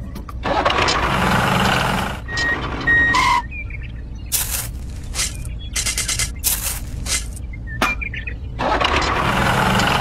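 Irregular scraping and rustling bursts as a miniature shovel scoops kinetic sand in a toy tractor's plastic dump trailer, over a steady low engine-like hum, with a few short beeps a couple of seconds in.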